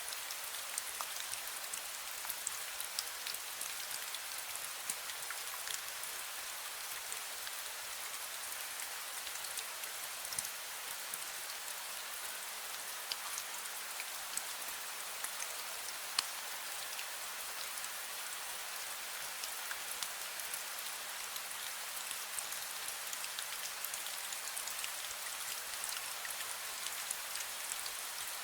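Steady drizzle falling, with many small drops pattering on surfaces.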